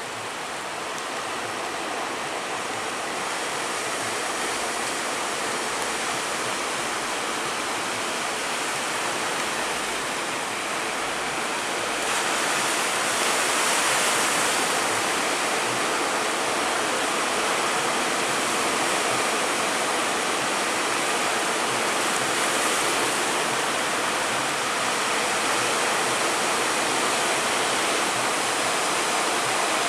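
Rough sea with big waves, a steady rushing of surf and churning water that grows a little louder about twelve seconds in.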